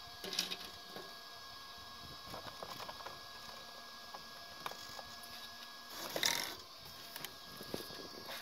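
Faint clicks and handling noise from the plastic body shell of a Traxxas Rustler RC truck being fitted on by hand, with a louder rustle of the shell about six seconds in.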